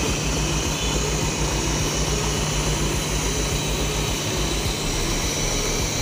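Diesel engine of a Mercedes-Benz BlueTEC 6 coach idling, heard close by as a steady low drone with a hiss above it.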